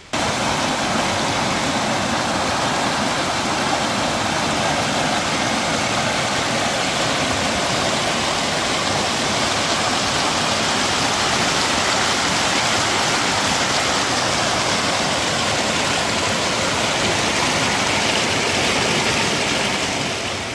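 Mountain stream rushing: a loud, steady wash of running water that starts suddenly and fades away near the end.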